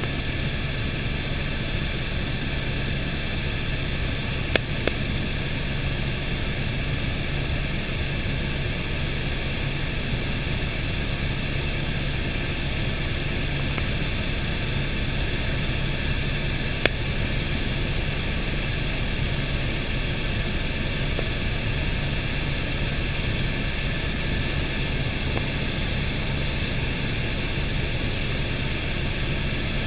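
Helicopter cabin noise in steady cruise: the engine and rotors make an even rushing drone with a low hum beneath it. Two brief sharp clicks stand out, one about four seconds in and one past the middle.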